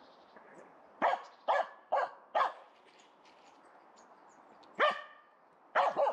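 Finnish Spitz barking at a squirrel up a tree: sharp single barks, four in quick succession about a second in, another near the middle, and two close together near the end.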